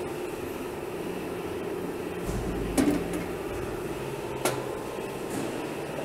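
The sheet-metal wheel cover of a band sawmill being opened and handled: a low thump and then two sharp metallic clicks, about three and four and a half seconds in, over a steady hum.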